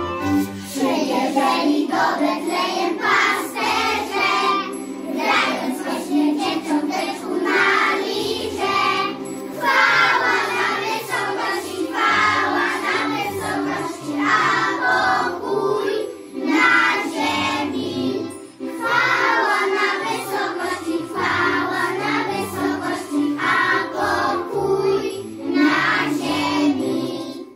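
A group of young children singing a Christmas song together over an organ-like electronic keyboard accompaniment.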